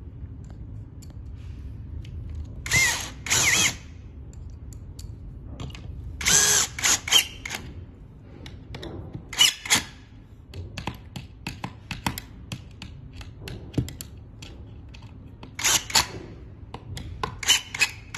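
Cordless drill-driver with a long screwdriver bit driving screws through a furniture leg's metal mounting plate, in five short bursts of the motor with a whine that bends in pitch. Small clicks and knocks of handling come between the bursts.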